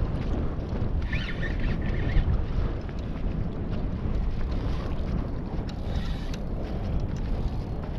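Wind buffeting the microphone on an open kayak, a steady low rumble, with a brief high wavering tone about a second in.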